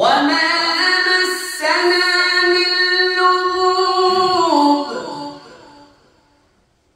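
A male qari's voice reciting the Qur'an in a melodic, chanted style: one long phrase of held, ornamented notes that steps up in pitch about a second and a half in, drops near the end and trails away.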